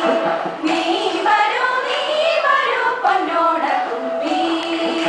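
A mixed group of women and men singing a Malayalam song together in unison, closing on a long held note near the end.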